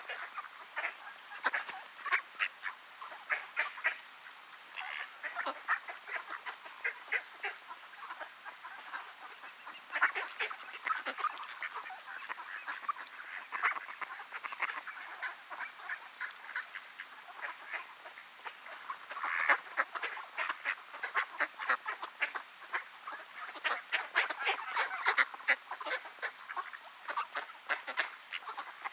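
Mallard ducks quacking: many short calls in irregular runs, busiest about a third of the way in and again over the last third, with a steady high-pitched hum underneath.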